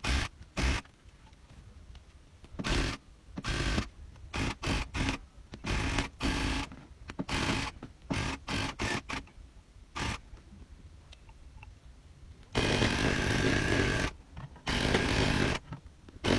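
Electric tufting gun punching yarn into backing cloth in short trigger bursts, stopping and starting several times. Near the end it runs in two longer stretches of over a second each.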